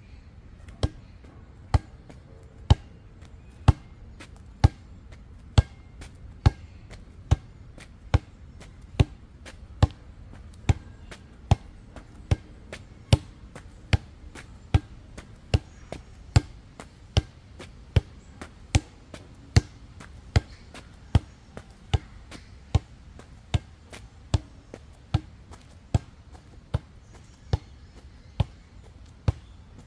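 Basketball on a cord struck in a steady rhythm, a sharp knock a little under once a second, over thirty in a row.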